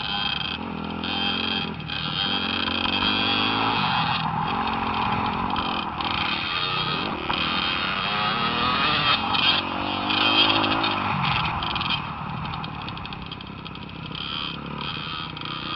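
Dirt bike engines running on a motocross track, the pitch rising and falling as the throttle is worked, over a steady rush of noise.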